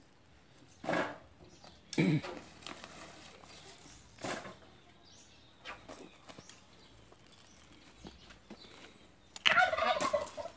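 Short knocks and rustles as the cover is taken off a steel-drum charcoal kiln, a few separate bumps in the first six seconds, then a louder, warbling burst of sound about nine and a half seconds in.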